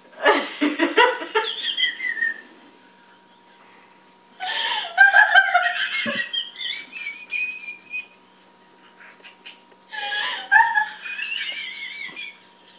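A woman's high-pitched laughter in three long fits, each a few seconds long, with quieter gaps between: an uncontrollable laughing attack.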